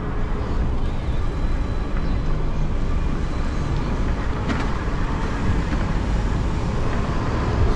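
Steady road and traffic noise while riding an e-bike through city streets, with a brief click about four and a half seconds in.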